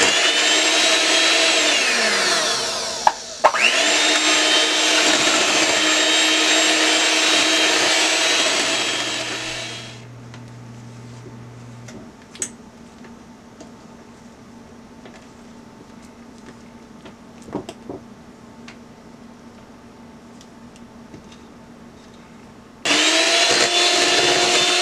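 Electric hand mixer running, its beaters churning cake batter in a glass bowl. The motor winds down briefly about two seconds in and starts again, stops around ten seconds in, and starts up once more near the end.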